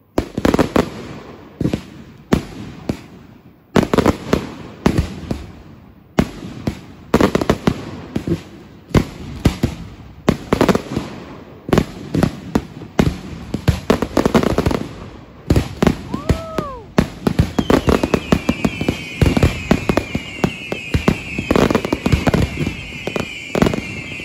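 Consumer fireworks going off in rapid succession: sharp bangs several times a second, each with a short echoing tail. A high-pitched whistling, crackling layer joins in over the last third.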